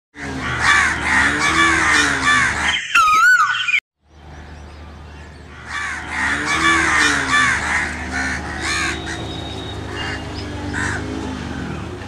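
House crows cawing, many short caws in quick succession, dense for the first three seconds and again from about six seconds in, then thinning toward the end. About three seconds in, a wavering electronic sweep sound lasts under a second, followed by a brief silence.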